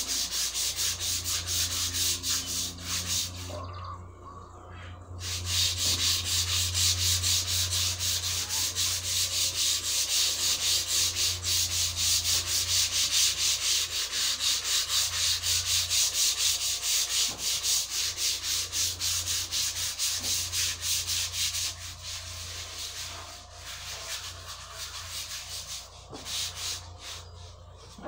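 Sandpaper rubbed by hand back and forth along a long, rounded wooden piece, about three to four even strokes a second. It pauses briefly about four seconds in, and the strokes grow lighter and more broken near the end.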